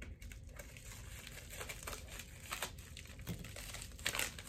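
Small plastic packet crinkling and rustling in the hands as it is cut open with scissors and pulled apart, with a louder rustle near the end.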